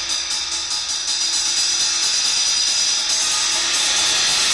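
Paiste PSTX 16-inch Swiss Thin Crash cymbal struck with drumsticks and ringing, a steady bright, hissing wash with little low end.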